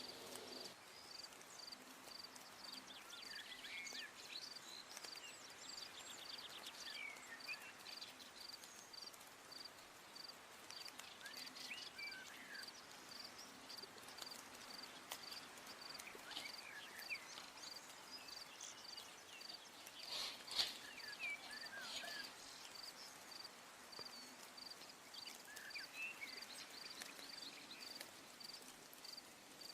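Faint outdoor ambience: an insect chirping steadily, a high pulse repeating a few times a second, with short bird chirps now and then. A single sharp click comes about two-thirds of the way through.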